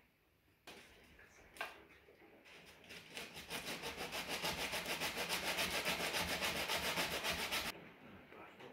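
Hand sanding of a wooden ukulele neck with a sandpaper-wrapped block: quick, even back-and-forth rasping strokes that build up and then stop abruptly, taking a little wood off one side of the neck so it lines up straight. A couple of sharp clicks come before the sanding starts.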